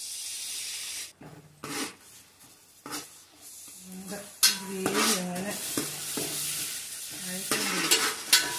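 Spiced pickle gravy sizzling in an aluminium pan as it is stirred with a spoon that scrapes against the pan, vinegar just added. A voice is heard briefly in between.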